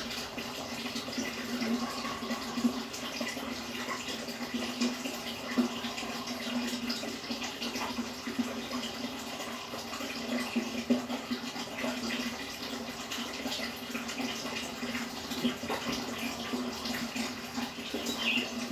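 Water bubbling and splashing steadily in a goldfish aquarium, over a constant low hum.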